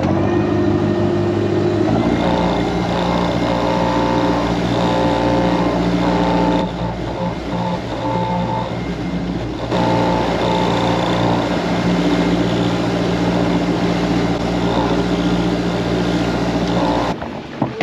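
Boat engine running under throttle. It steps up in pitch about two seconds in, eases off for a few seconds in the middle, comes back up, and is throttled off near the end.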